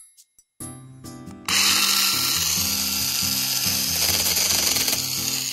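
Small handheld chainsaw starting suddenly about a second and a half in and running steadily while it cuts maple branches, with background music underneath.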